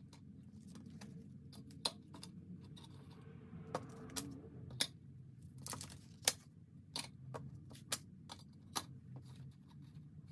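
Paper banknotes being handled and set into a clear divided cash tray: light rustling of bills with about a dozen scattered sharp clicks and taps, the loudest about six seconds in, over a low steady hum.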